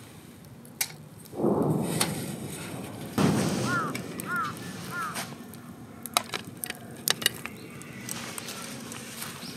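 Aluminium Trangia Storm Cooker pots being handled and nested together, with two rough scraping rubs of metal on metal and then a few sharp clinks as the pan is set on top. A bird calls four times in quick succession in between.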